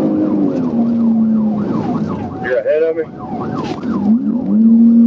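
Police patrol car siren on a rapid yelp, sweeping up and down about three to four times a second, over the pursuing car's engine at speed. The engine eases off about half a second in and picks up again near the end.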